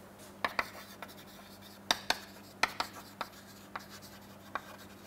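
Chalk writing on a blackboard: a run of sharp, irregular taps and short scrapes as the letters are formed.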